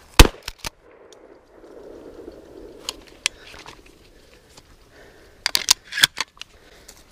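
Sharp metallic clacks and clicks from handling a Remington 870 20-gauge pump-action shotgun: one loud clack just after the start and two lighter ones right after, then scattered clicks and a quick run of clicks about five and a half to six seconds in.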